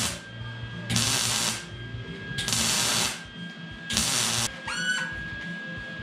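MIG welder arc crackling in four short bursts of about half a second each, roughly every second and a half, as stitch welds are laid on a fabricated intake box and pipe. Background music with a steady tone plays underneath, with a short rising glide near the end.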